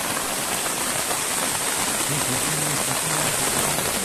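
Heavy rain falling steadily, an even hiss of rainfall.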